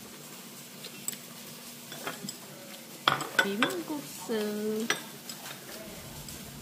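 Dishes and cutlery clinking lightly, in scattered small knocks, with a short voice sound about three seconds in and a brief held tone just after.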